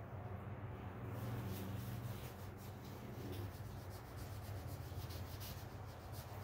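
Paper towel rubbing and wiping along the edge of an epoxy resin panel in a run of short scratchy strokes, over a steady low hum.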